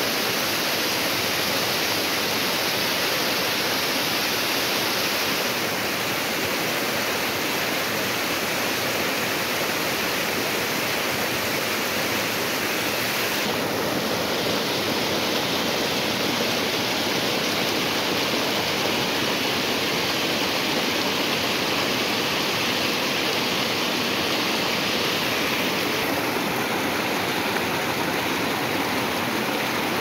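Waterfall cascading over rocky steps: a steady rush of white water splashing over stones. Its tone shifts abruptly a few times.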